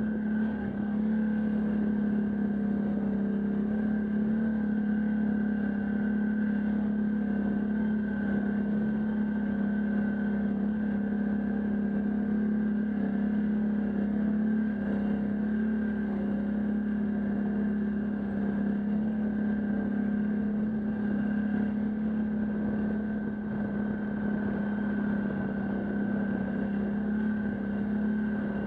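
Can-Am Outlander ATV engine running steadily at a constant pitch, with no rise or fall in speed.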